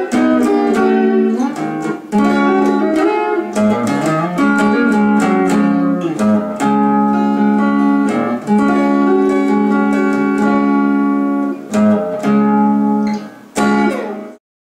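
Electric guitar played solo in a blues style, single notes and chords ringing out. It finishes with a couple of closing chords that die away, then the sound stops abruptly.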